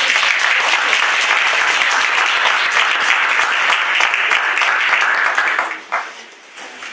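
Audience applauding loudly, dying away about six seconds in.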